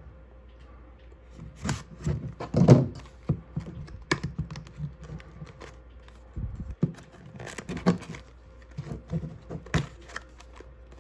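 A small cardboard trading-card box being handled and pried at with the fingers to get it open: irregular scrapes, taps and light rustles of thin card. The box is stubborn to open.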